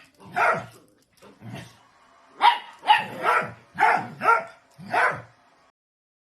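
A dachshund barking repeatedly in sharp, separate barks: a few in the first couple of seconds, then a quicker run of six that stops about a second before the end.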